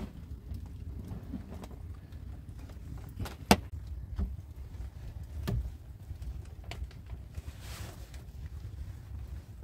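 A few sharp, scattered knocks and clicks, the loudest about three and a half seconds in, over a low steady rumble.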